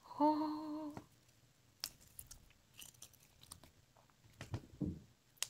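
A short hummed voice sound near the start, then faint sticky clicks and crackles of stiff glitter slime being pulled and stretched by hand, with a brief low vocal grunt near the end.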